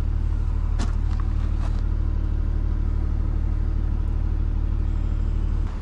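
Ford 2715E 6.2-litre naturally aspirated six-cylinder diesel engine of a 50 kVA generator, running at a steady speed with an even pulse. It is the freshly fitted replacement engine on a test run.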